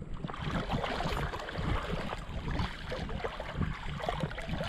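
Shallow seawater sloshing and splashing close by, a steady crackling wash of water as someone wades over a coral reef flat.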